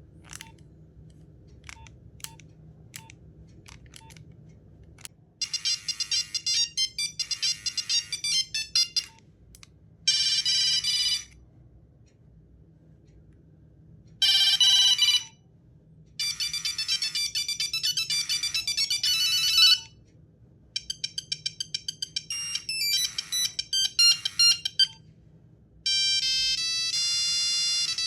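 Nokia 1100 monophonic ringtones played one after another, six short bursts of different beeping melodies with brief pauses between them. A few faint clicks come first, in the opening five seconds.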